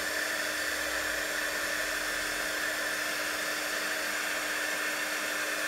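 Craft embossing heat gun running steadily, a constant blowing rush with a steady hum, as it melts black embossing powder.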